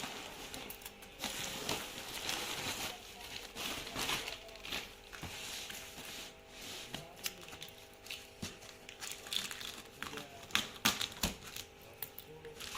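Packaging being handled, crinkling and rustling in bursts for the first few seconds, then scattered clicks and taps.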